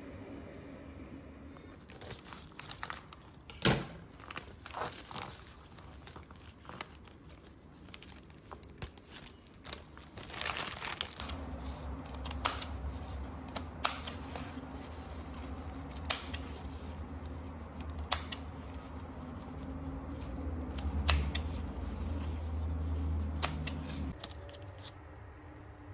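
Flower stems and leaves rustling as they are handled, then scissors snipping through flower stems. There is one sharp snip about every two seconds over a low steady hum that stops near the end.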